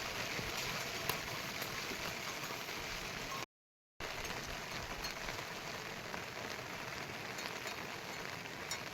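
Heavy monsoon rain falling steadily, a dense even hiss with scattered drop ticks. The sound cuts out completely for about half a second partway through, then the rain resumes.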